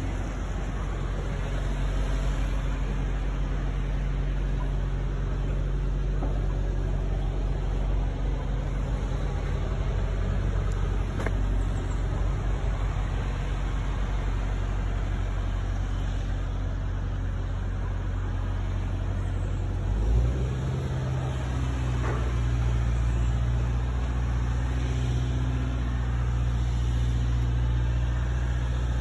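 A motor engine running steadily with a low hum, stepping up slightly in pitch and loudness about two-thirds of the way through.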